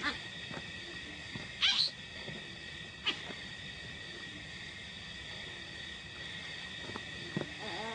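Steady chorus of night insects, with two short high cries from a newborn baboon, about two and three seconds in.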